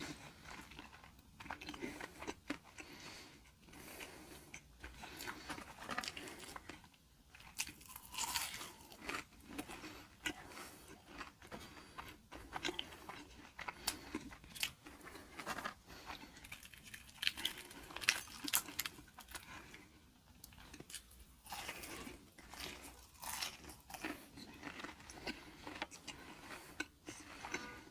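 Close-miked chewing and crunching of fast food: irregular crisp crackles of biting and chewing with short quiet gaps between mouthfuls.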